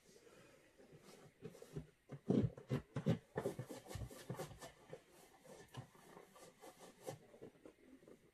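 Hand-handling noises: irregular light clicks, taps and rubbing, busiest and loudest about two to three seconds in.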